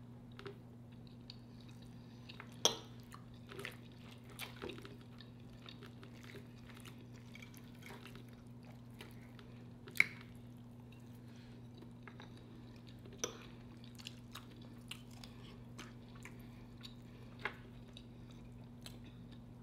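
Close-miked eating: soft, wet chewing and mouth sounds from people eating chicken in cream sauce over rice, with scattered sharp clicks of forks and lips, the loudest about ten seconds in. A steady low hum runs underneath.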